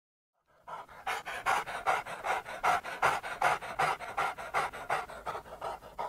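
A dog panting quickly and evenly, about three breaths a second, starting about half a second in.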